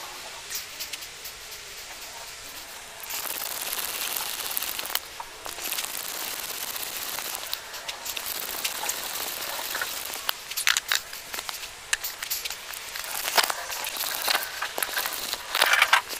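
Hand brace and auger bit boring a 3/4-inch hole in wood: a steady scratchy rasp of the bit cutting, then knocks and clicks from about 10 seconds in, loudest near the end.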